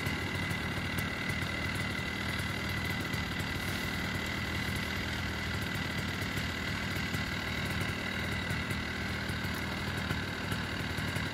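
Paramotor trike's propeller engine idling steadily, cleared for takeoff but not yet throttled up.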